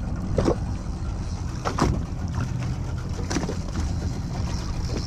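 Boat engine running under way at sea, a steady low rumble with water rushing past the hull and a few sharp splashes as it meets the waves.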